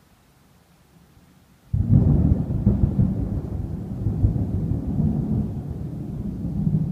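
Thunder: a sudden loud crack about two seconds in that carries on as a deep, low rumble, swelling and easing without dying away.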